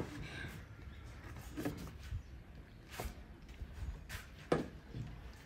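About five light, separate knocks and taps on a wooden tabletop, as a plastic feeding bottle and a baby monkey's hands are moved about on it; the firmest knocks come at the start and near the end.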